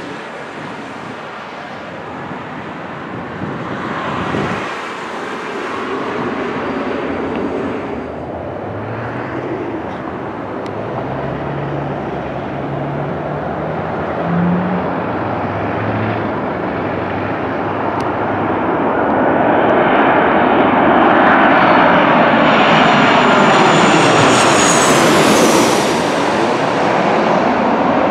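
Boeing 737 jetliner on short final passing low overhead: the engine noise grows steadily louder over about twenty seconds, peaking near the end with a high whine that falls in pitch as the jet goes over.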